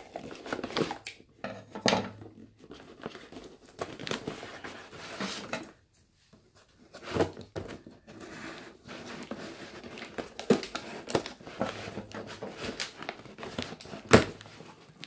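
Cardboard shipping box being opened by hand: irregular rustling, scraping and crinkling of cardboard and packing tape, with scattered knocks and one sharp loud knock near the end.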